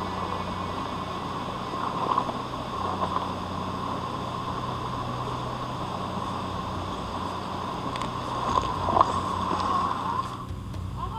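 Steady rush of waterfall water under the whine of an RC crawler's Holmes 55T brushed motor. The whine swells twice, rises near the end and cuts off shortly before the close.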